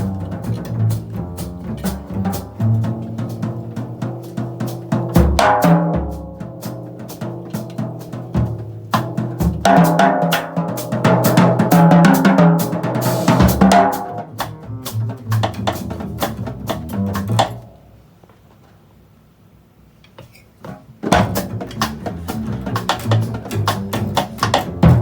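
Jazz drum kit playing busy snare and bass drum figures, with low pitched notes underneath. The playing stops about 17 seconds in and starts again about four seconds later.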